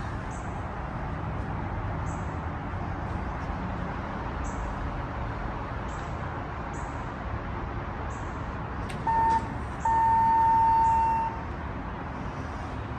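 Steady rumble of traffic, then about nine seconds in an electronic beep: one short tone and, after a brief gap, a longer one of about a second and a half at the same steady pitch.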